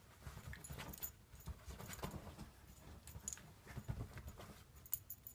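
Morkie puppy scrambling about after its own tail: faint, irregular soft taps and scuffles of its paws, with a few light high jingles.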